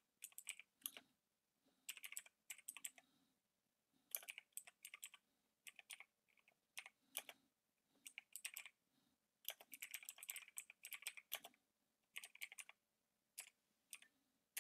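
Typing on a computer keyboard: quiet, irregular keystrokes in short runs with brief pauses between them.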